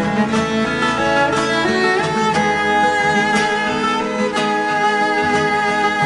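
Background instrumental music with fiddle and guitar.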